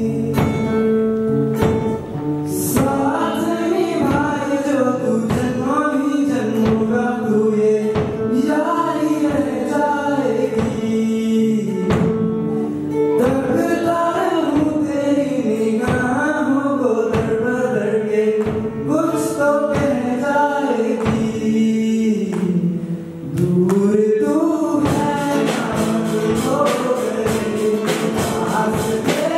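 Live amplified song by teenage boys singing into microphones, with acoustic guitar and a steady held note underneath. A regular drum beat comes in near the end.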